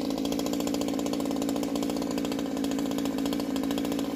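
Two-stroke chainsaw engine running steadily at an even, unchanging pitch, not cutting or revving.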